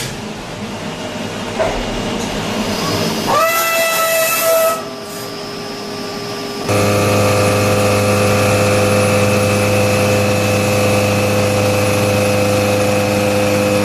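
Six-axis CNC machine running. A noisy first half includes a brief rising whine about three seconds in, held for about a second and a half. At about seven seconds a steady pitched hum with several overtones sets in and holds.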